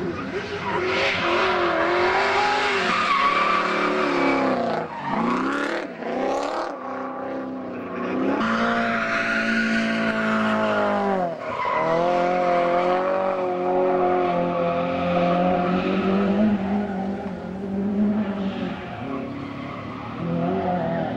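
Drift cars running at high revs while sliding, the engine pitch rising and falling with the throttle over a steady screech of spinning tyres. The revs drop sharply and climb again about five seconds in, and again near eleven seconds.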